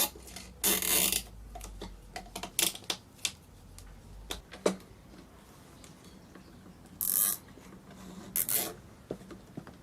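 Cable ties being pulled tight with a ratcheting zip, in a few short bursts near the start and again near the end, with small clicks and knocks between them.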